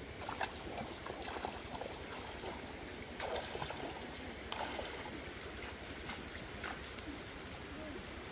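Shallow rocky stream running, with irregular splashes from bare feet wading through the water.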